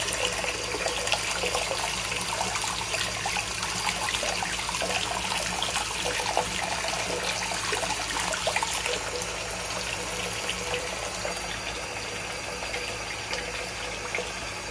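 Bathroom sink faucet running steadily, the stream splashing into the basin and into the open beak of a rubber chicken toy. Slightly quieter in the last few seconds.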